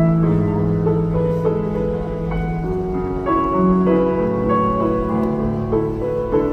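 Slow, soft background music with long held notes that change every second or so.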